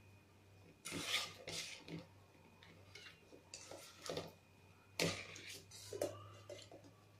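Steel spoon scraping and clinking against the sides of a stainless steel pot as thick cooked semolina is stirred, in irregular strokes, over a low steady hum.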